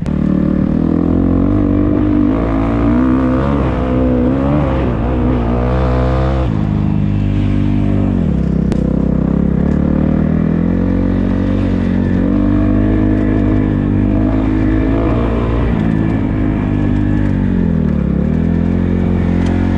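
Dirt bike engine revving hard on a motocross track, its pitch climbing under throttle and dropping sharply about a third of the way in, then rising and dipping again as the rider works the throttle and gears.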